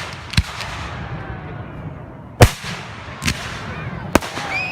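Fireworks going off: four sharp bangs at uneven intervals, the loudest about halfway through, and a whistle that rises in pitch just before the end.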